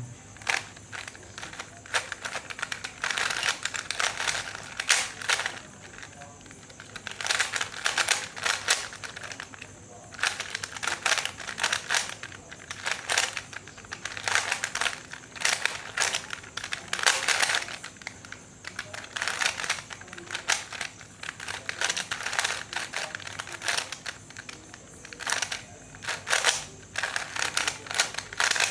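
A 3x3 Rubik's Cube being turned quickly during a timed solve: its plastic layers click and clack in rapid bursts, with short pauses between the bursts.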